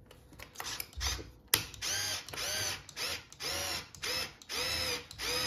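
Cordless screwdriver driving Torx screws into a dishwasher mounting bracket: a sharp click, then about five short bursts of motor whine, each rising and falling in pitch as the trigger is pulled and released.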